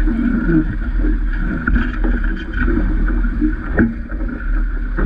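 Wind buffeting the microphone and water rushing along the hull of a Vaucluse Junior sailing dinghy under way, with three sharp knocks.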